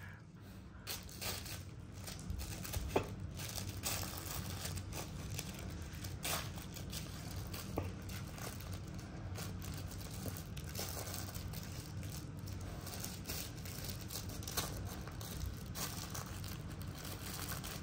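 A Dalmatian nosing and chewing at a plush treat-puzzle toy, working to get a treat out through its little door: a steady scratchy rustling with scattered small clicks.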